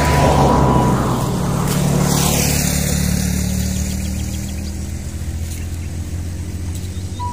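A motor vehicle engine on the road, loudest in the first two seconds as it passes, falling in pitch, then a steady low engine hum.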